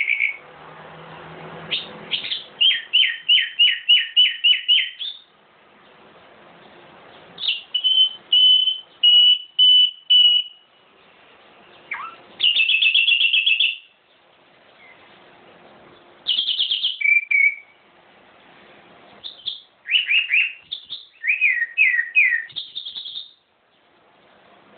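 A songbird singing in separate phrases: fast runs of repeated notes and a string of clear whistled notes, with short pauses between phrases.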